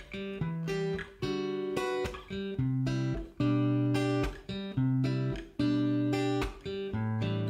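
Background music: a guitar playing plucked chords, a new chord struck every half second to a second.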